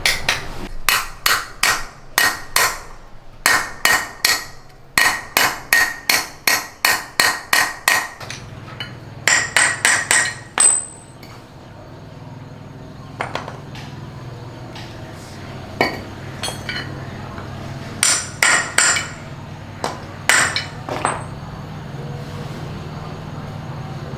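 Repeated sharp metal-on-metal strikes, each with a brief ring: a fast even run of about two to three blows a second, then scattered blows after about eight seconds, over a steady low hum.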